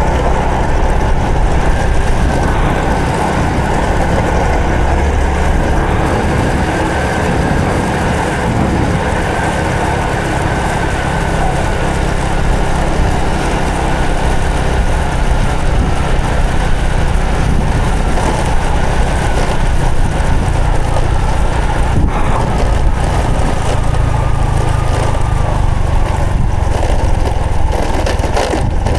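Honda Supra X 125 FI single-cylinder four-stroke engine running steadily while the motorcycle is ridden, with road noise.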